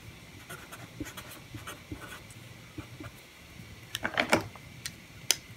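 Felt-tip marker writing on paper in short, faint scratchy strokes, followed about four seconds in by a few louder handling rustles and a single sharp click near the end.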